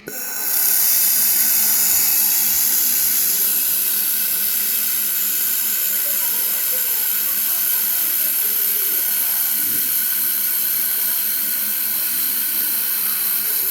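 Handheld fiber laser welder working on metal: a loud, steady, high hiss with a faint steady whistle. It starts abruptly and holds for about fourteen seconds.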